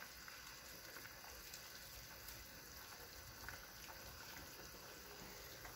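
Faint, steady bubbling of a pot of spaghetti at a rolling boil.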